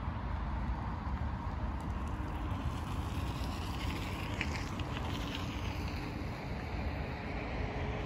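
Wind rumbling and buffeting on the microphone in open air, steady throughout, with a few faint high ticks about halfway through.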